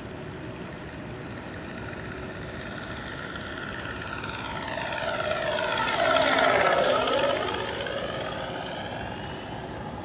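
Electric Flightline F4U-1A Corsair RC warbird flying past: its propeller and motor, with the simulated engine sound from its onboard sound system, grow louder to a peak about six to seven seconds in. The pitch drops as it goes by, and the sound then fades away.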